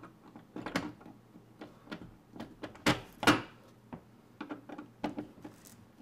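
A flat-blade screwdriver scraping and clicking metal on metal inside the drilled-out cylinder of a Defiant deadbolt as it is worked in the keyway. The clicks are irregular, with two louder scrapes about three seconds in.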